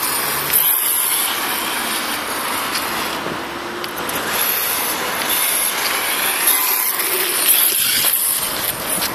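Electric radio-controlled monster truck running: a high motor and gear whine with tyre noise, rising and falling as it speeds up and slows, and dropping for a moment a few seconds in as it drives off.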